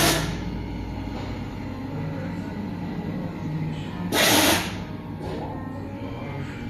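Steady low mechanical hum, with a short hissing burst at the start and a longer one about four seconds in.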